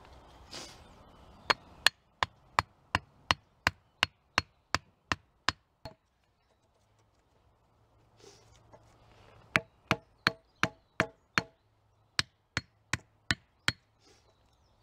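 A hatchet driving a small wooden peg into the ground between two poles: sharp wooden knocks at about three a second, a dozen or so, then after a pause of a few seconds two more short runs of about half a dozen knocks each.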